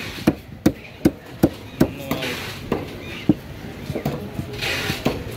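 Large curved knife chopping tuna on a wooden board: a quick run of sharp chops about three a second, then slower, lighter strokes.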